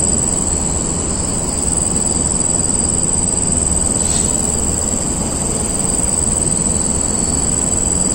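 Forest insects droning at one steady high pitch, over a constant low rumble.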